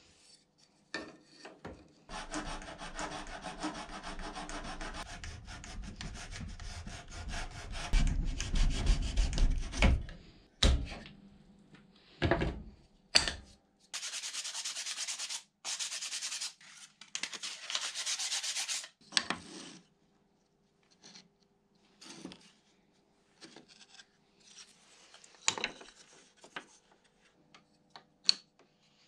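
Small pieces of wood being sanded by hand: long stretches of rubbing, rasping strokes, broken by a few sharp knocks about ten to thirteen seconds in and a bright hissing spell after that. In the last third there are only scattered light taps and clicks as the pieces are handled and held against a wooden door.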